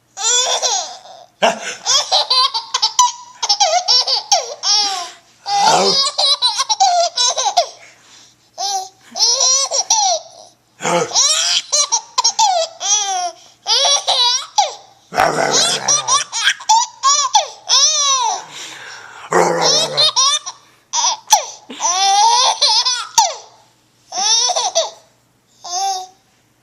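A six-month-old baby laughing hysterically in long bouts of high-pitched squealing giggles, with short pauses between bouts.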